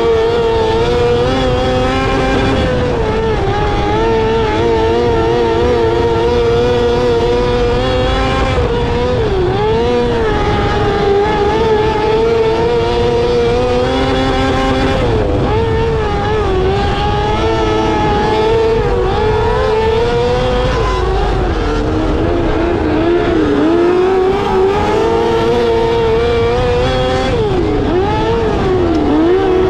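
Micro sprint race cars' high-revving motorcycle engines running flat out. The engine note holds high and steady, then dips briefly and climbs back every few seconds as the throttle is lifted and reapplied through the corners.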